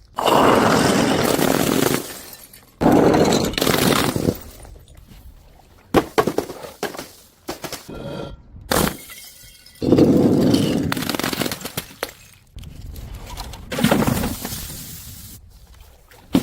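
Glass bottles shattering one after another, about six crashes, each followed by the clinking of falling shards.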